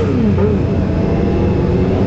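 Motorcycle engine running steadily, most likely the rider's own Triumph Street Triple RS three-cylinder, with an engine's pitch falling away in the first half-second.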